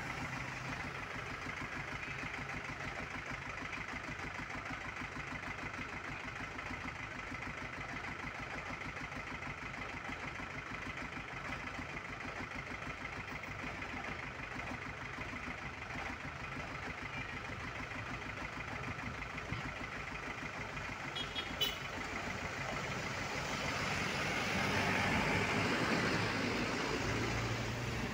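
Bus engine idling steadily, growing louder for a few seconds near the end, with a brief sharp click about three-quarters of the way through.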